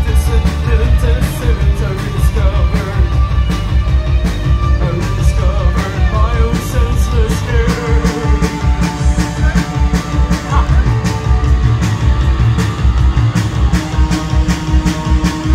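Post-punk band playing live: a steady drumbeat, heavy bass and guitar, loud and bass-heavy as heard from within the audience.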